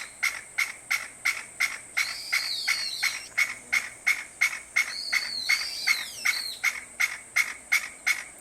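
Chinese bamboo partridge calling: a long run of loud, sharp notes repeated evenly at about three to four a second. A higher, arching call is heard three times among them.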